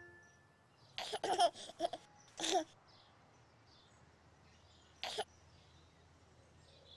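A baby giggling and cooing: a cluster of short giggles about a second in, then one more about five seconds in.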